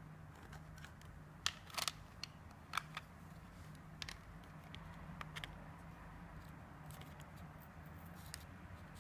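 Plastic case and parts of an opened power bank being handled: a handful of short, sharp clicks and taps, most of them in the first half, over a faint steady low hum.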